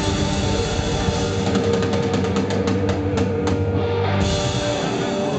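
Live rock band with drum kit and electric guitars playing loudly, with a run of quick drum hits about midway, then the band holding a final chord.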